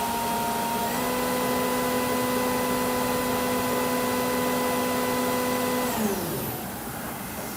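Spindle of a Kira HPC-30VB CNC tap and drill center running with a steady whine over a hiss. The whine steps slightly up in pitch about a second in, then falls away near the end as the spindle slows down.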